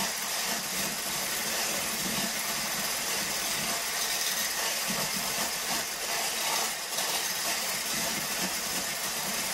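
Small handheld electric mixer whirring steadily, its whisk beating shea butter and liquid oil in a glass jar into a whipped cream.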